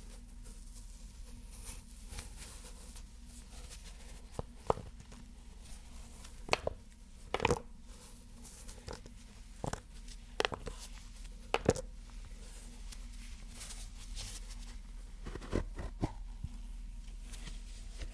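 Objects handled close to the microphone: a dozen or so short, sharp taps and clicks at irregular intervals, most of them in the middle of the stretch, over a faint steady hiss.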